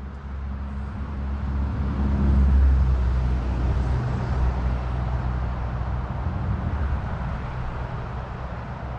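A road vehicle passing: engine hum and tyre noise swell to a peak about two and a half seconds in, then slowly fade away.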